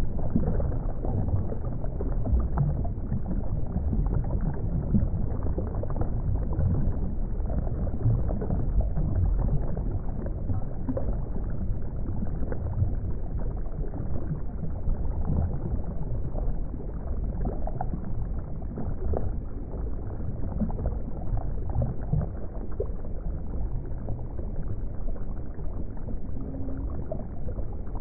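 Underwater water ambience: a steady, muffled low rumble of moving water with faint bubbling crackles throughout.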